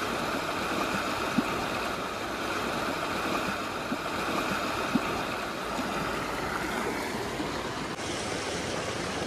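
Fast-flowing river water rushing steadily, a continuous even roar of moving water.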